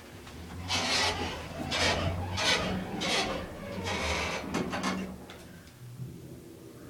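Elevator machinery starting up: a low motor hum under a series of rasping, scraping strokes, which die away after about four and a half seconds.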